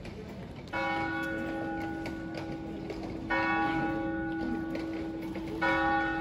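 A church bell struck three times, about two and a half seconds apart. Each stroke rings on and fades slowly, with a lower hum note carrying on between the strokes.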